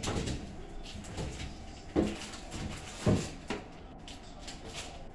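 Short knocks and rattles of containers being moved about in an open refrigerator, a few separate clunks over a low clatter.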